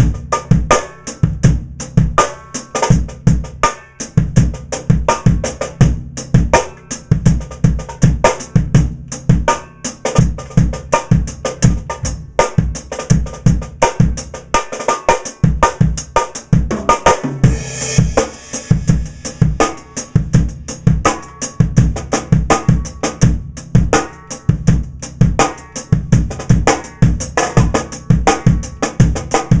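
Drum kit played in a continuous groove: bass drum, cymbals and a Pearl Firecracker steel-shell snare tuned very high, with a cymbal wash about seventeen seconds in.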